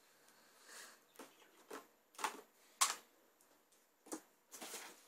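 A laptop AC adapter and its power cord being handled: a string of separate plastic clicks and knocks, the loudest about three seconds in, then a rustle near the end.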